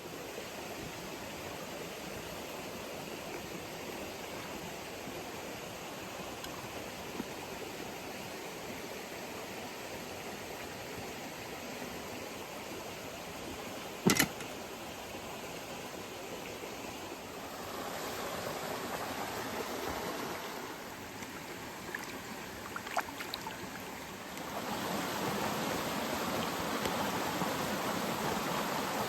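Steady rushing of a river flowing, with one sharp knock about halfway through and a few faint ticks a little later; the rushing grows louder for the last few seconds.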